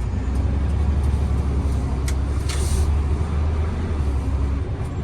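Flatbed tow truck's engine running steadily as it drives and turns, a deep low rumble. A short click and a brief hiss come about two and a half seconds in.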